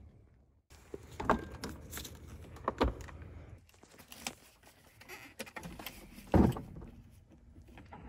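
Scattered clicks and knocks of handling inside a Mercedes W124's cabin: keys jangling and going into the ignition, with one louder thump about six seconds in. The key is turned to switch the ignition on near the end, with the engine not yet running.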